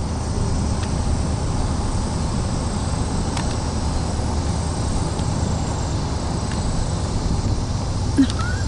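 Pickup truck's engine and tyres heard from inside the cab as it rolls along the road: a steady low drone.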